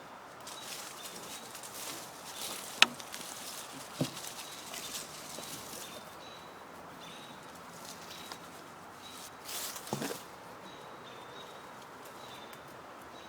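Outdoor ambience of leaves rustling and a few sharp knocks of handling, the loudest about three seconds in, with short, faint high chirps repeating in the background.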